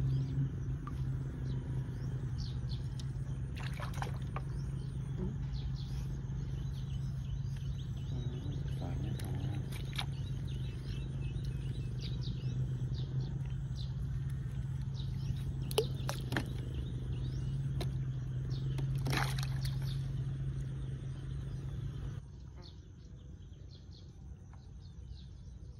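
Outdoor ambience: a steady low hum with scattered short bird chirps over it. The hum cuts off suddenly a few seconds before the end, leaving fainter background.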